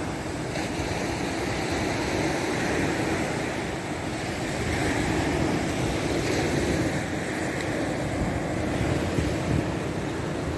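Wind buffeting the microphone over surf washing onto the beach, a steady rushing with no pauses.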